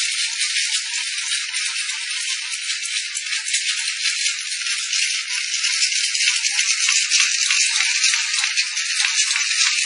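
A sticker labelling machine running: a dense, steady, high-pitched rattling clatter with a faint thin whine underneath, growing slightly louder towards the end.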